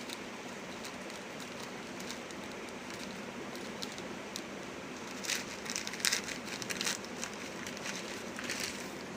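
Packaging being handled, with small clicks and, about five to seven seconds in, a spell of crinkling and rustling, over a steady hiss.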